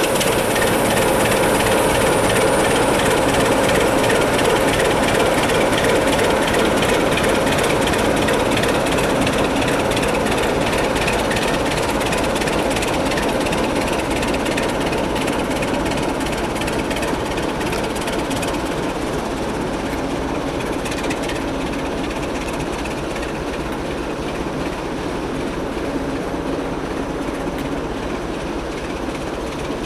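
Diesel train running along the line: a loud, steady mechanical noise with wheel clatter on the rails, easing slowly in level over the stretch.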